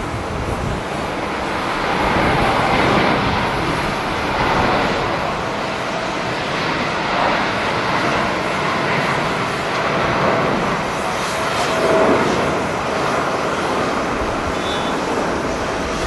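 Boeing 787 airliner's jet engines at takeoff thrust during the takeoff roll, a steady rushing roar heard from a distance, with wind on the microphone.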